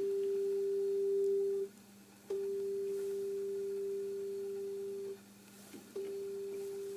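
Steady sine tone from the Fitzgreyve 1630d frequency shifter module, a digital homage to the Moog Bode 1630. It cuts out twice, for about half a second and then about a second, as the squelch closes on the lowered input level. Each time it comes back with a faint click.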